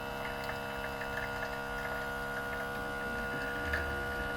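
Outin Nano portable espresso machine's pump humming steadily as it pushes heated water through a capsule and dispenses espresso.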